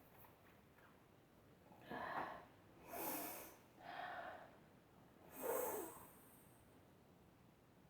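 A person breathing sharply through the nose four times, about a second apart, the last the loudest: a dust-irritated nose during a sneezing fit.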